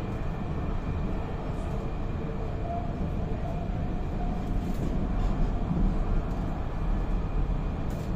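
Tram running along its rails, heard from inside the car: a steady low rumble of wheels on track with a faint hum above it.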